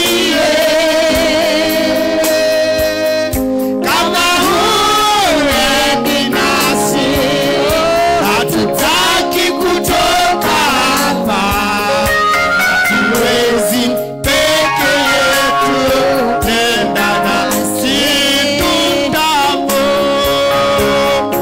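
A man singing a worship song into a microphone over amplified instrumental backing, his voice wavering and sliding between long held notes.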